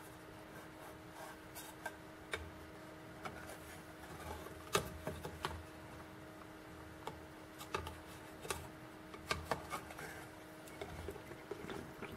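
Scattered light clicks and knocks from an aluminium cup and a plastic tub being handled and set down, over a steady low hum.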